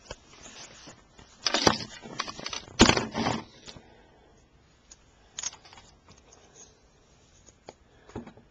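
Handling noise: rustling and scraping with sharp clicks as the camera is moved about and a wooden fingerboard is picked up. There are two loud bursts about a second and a half and three seconds in, then fainter scattered clicks.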